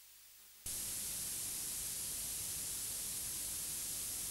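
Steady hiss of analogue tape noise, switching on abruptly just under a second in and holding at one level, with no other sound.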